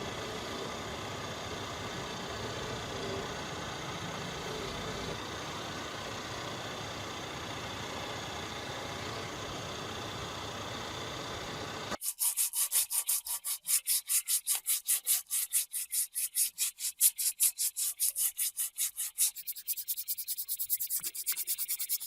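A steady mechanical noise, which stops abruptly about two-thirds of the way in. Then comes rapid back-and-forth hand sanding, about four scraping strokes a second, which turns to quicker, lighter strokes near the end.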